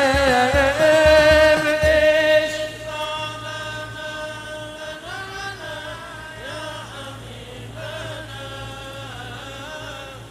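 Shalawat, an Arabic devotional song to the Prophet, sung in long ornamented vocal lines over a low regular beat. About two and a half seconds in, the beat stops and the singing goes on more softly in held notes.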